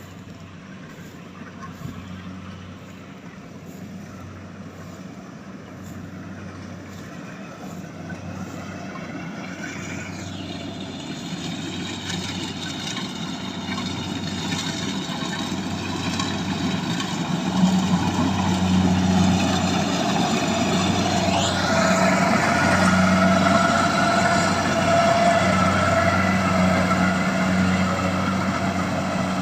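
Diesel engine of a rice combine harvester running steadily, growing louder over the first two-thirds as the machine draws closer, then holding.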